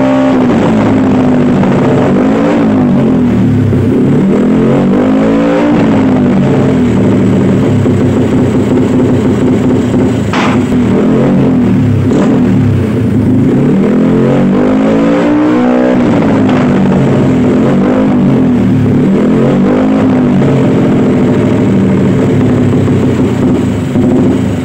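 Carbureted automatic scooter engine revved over and over through an aftermarket slip-on exhaust, its pitch climbing and falling every second or two. About ten and twelve seconds in, two sharp cracks from the exhaust stand out: backfire pops from a setup rigged to make the exhaust fire.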